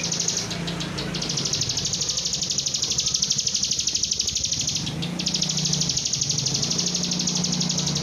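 Bar-winged prinia (ciblek) singing a long, high-pitched, fast pulsing trill, broken off briefly about half a second in and again near five seconds, over a steady low hum.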